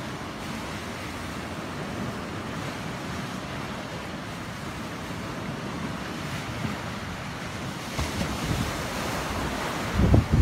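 Small sea waves washing and breaking on a rocky shore, with steady wind. Near the end the wind hits the microphone in louder gusts.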